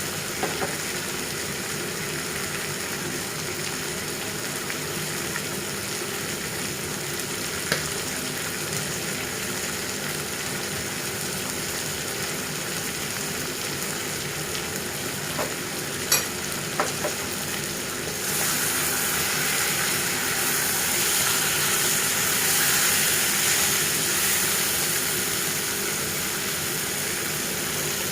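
Curry frying in hot oil in a pan, sizzling steadily, with a few sharp clinks of a spoon against the pan as it is stirred. The sizzle grows louder about two thirds of the way in.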